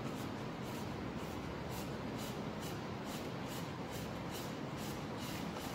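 Gloved hand gripping and turning a spin-on coolant filter canister, screwing it onto its filter head: a run of short, soft rubbing strokes, roughly three a second, over steady room noise.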